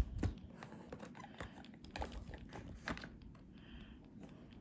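Small plastic Play-Doh rolling pin rolled back and forth over dough on a plastic tray, giving a run of light clicks and taps that thins out after about three seconds.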